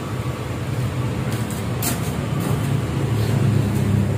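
A steady low mechanical hum, with a few faint clicks above it.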